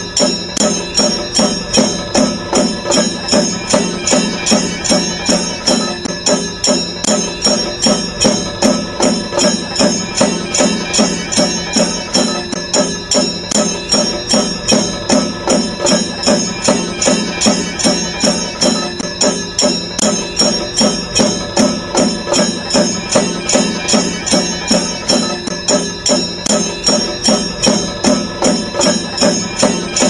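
Background music with a steady, even beat.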